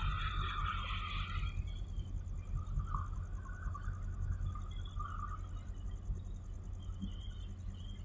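Harbour ambience: a steady low rumble with faint insect chirping, the chirping strongest in the first second or so and coming and going after that.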